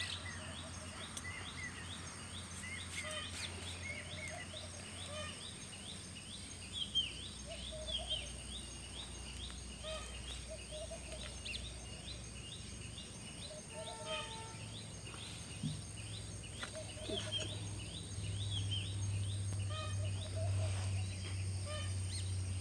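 Birds calling in the background: a rapid run of short, repeated high chirps, about three or four a second, with lower calls mixed in. A steady low hum underneath grows louder near the end.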